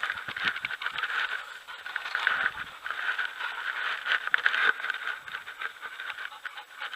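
Rustling and scraping close to the microphone, many small irregular clicks over a steady high hiss.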